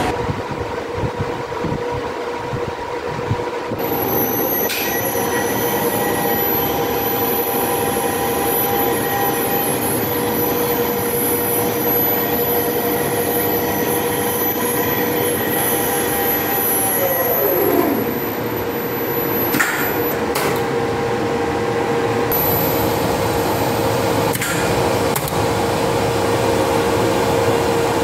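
Nippon elevator traction machine and its drive running, a steady mechanical hum with a high whine over it. About two-thirds of the way through, a whine falls in pitch as the machine slows, and a few sharp clicks follow.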